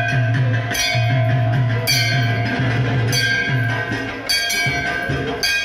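Temple percussion: a metal bell or gong struck about once a second, each strike ringing on, over a quick, steady drum beat.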